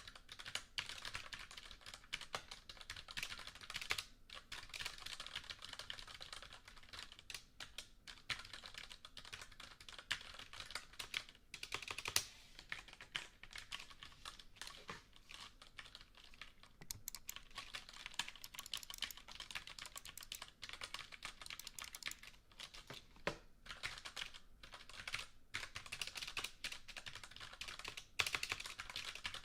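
Typing on a computer keyboard: continuous flurries of key clicks with short pauses between runs.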